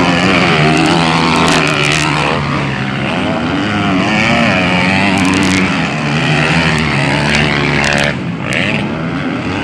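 Several motocross dirt bike engines revving, their pitch rising and falling as the riders accelerate, ease off and shift. The bikes overlap, and one is loud as it rides close by.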